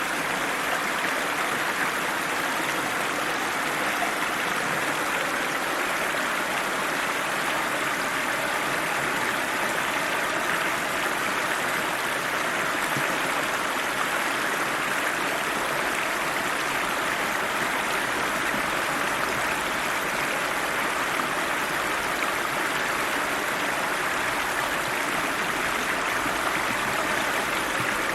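Icy cold river flowing over rocks: a steady, even rushing of water.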